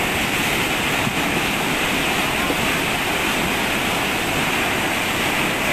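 Muddy floodwater from heavy rain rushing down a concrete channel: a steady, even torrent.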